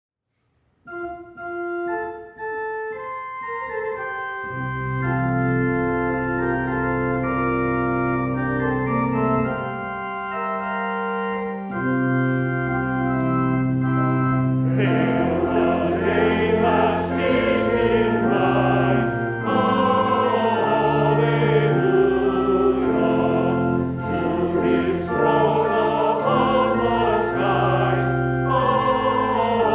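A church organ plays a hymn introduction in steady held chords. About halfway through, a choir comes in singing the hymn with the organ.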